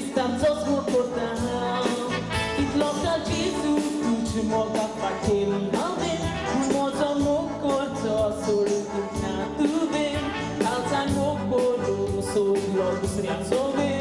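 A woman sings a Konkani song into a microphone, backed by band music with a steady drum beat.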